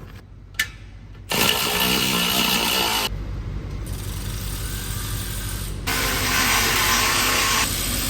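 Power tool running in two loud bursts, one from about a second in and another near the end, with a quieter stretch between, tightening the new exhaust's 14 mm bolts.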